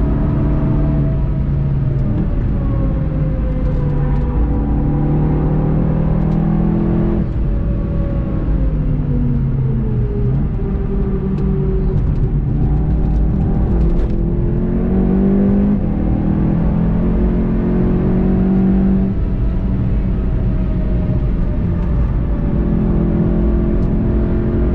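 Onboard sound of a VW Golf 7 GTI TCR's turbocharged four-cylinder engine driven hard. The engine note falls as the car brakes for a corner, is lowest about ten seconds in, then climbs again under full acceleration through the gears.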